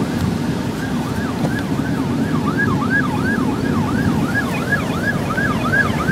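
Emergency vehicle siren in a fast yelp, sweeping up and down about three times a second and growing louder toward the end, over a steady low rumble of vehicle and wind noise.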